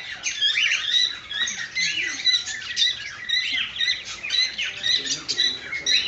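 Many caged small parrots, budgerigars and cockatiels, chirping and chattering together in a continuous overlapping din of short high chirps and squawks.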